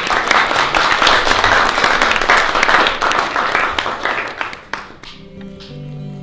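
Audience applauding, loud and dense, dying away about five seconds in as closing music with held notes comes in.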